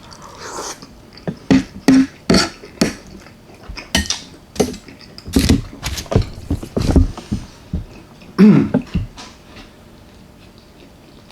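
Close-miked eating sounds: wet chewing, lip smacks and mouth clicks in irregular bursts, with a brief hum of enjoyment about eight and a half seconds in.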